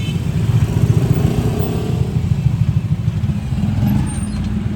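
Street traffic with a motor vehicle engine running close by, a rapid low pulsing that is loudest about a second in.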